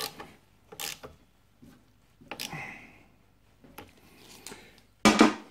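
Hand tools being worked and handled on a motorcycle's front brake caliper bolts: a few light metallic clicks and knocks spaced about a second apart. A louder, brief clatter with some ringing comes near the end.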